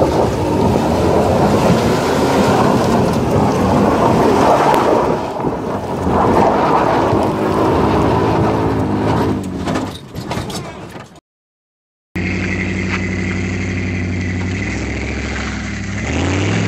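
Toyota Tacoma pickup's engine revving hard with its tyres spinning on loose dirt and gravel, under a thick, steady rush of noise. About eleven seconds in the sound cuts out for a moment, and a second SUV's engine takes over, revving with its pitch rising in steps near the end.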